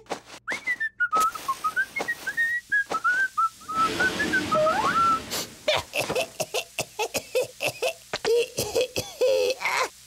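A cartoon chick whistling a short wavering tune for about three seconds, over quick clicks. Then comes a brief hiss of noise with a rising whistle, and a run of clicks and short squeaky cartoon vocal sounds near the end.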